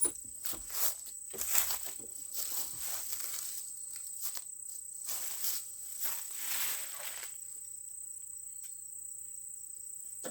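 A steady, high-pitched insect drone of crickets, with scattered rustling and scraping of hands working on tractor battery cables over the first seven seconds or so. After that only the drone remains.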